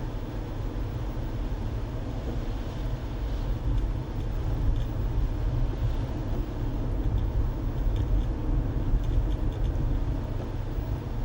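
Car on the move: steady low rumble of road and engine noise.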